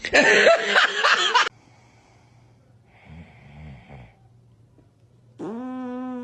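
A run of comic fart sounds: a loud, noisy, wavering blast lasting about a second and a half, a short low sputter about three seconds in, then a long steady-pitched one starting near the end.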